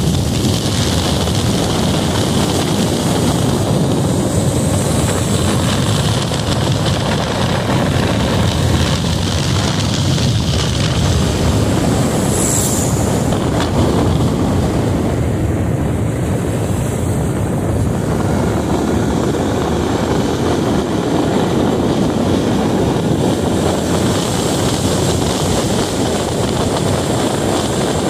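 Motorcycle riding at road speed: the engine runs steadily under a heavy rush of wind on the microphone.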